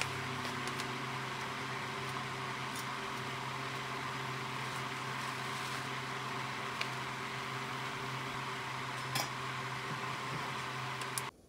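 A fan or small appliance motor running with a steady hum and hiss, with a faint click about nine seconds in, then stopping abruptly near the end.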